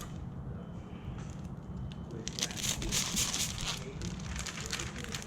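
Window tint film crinkling and crackling as it is handled, starting a couple of seconds in over a low steady hum.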